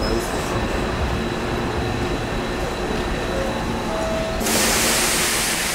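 Maroon Hankyu commuter train pulling into a station platform, with a steady rumble of wheels and running gear. About four and a half seconds in, a loud hiss of air starts and lasts about a second.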